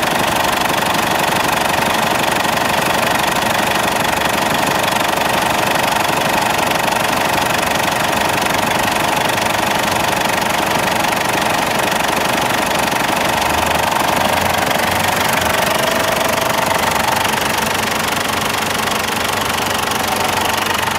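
Mazda BT-50 common-rail diesel engine running steadily with the bonnet open.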